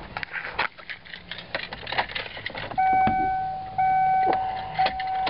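Keys jingling and rustling, then a car's dashboard warning chime starts about three seconds in: one steady electronic tone repeating about once a second.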